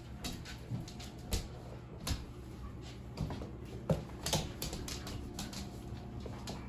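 Irregular light clicks and taps from puppies moving about their pen, with a few louder knocks.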